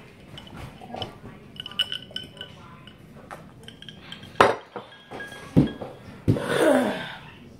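Clinks and knocks of a drinking glass and tableware on a table, with a few light ringing clinks and a sharp knock about four and a half seconds in. A short voice-like sound comes near the end.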